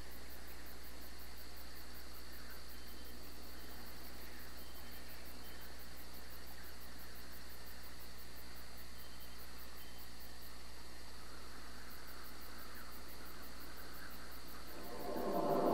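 Steady, unbroken cricket trill over a low hum and hiss. Near the end a deep gong-like musical swell rises in.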